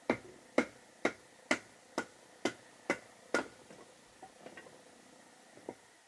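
A full-tang sheath knife splitting a stick of firewood into kindling, about two knocks a second, with eight sharp wooden knocks in a row as the stick and blade are struck down on a wooden board. The knocks are followed by a few lighter taps and one last knock near the end.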